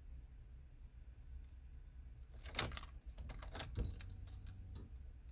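A bunch of car keys jangling with a run of small metallic clicks, starting a little over two seconds in and lasting about two seconds.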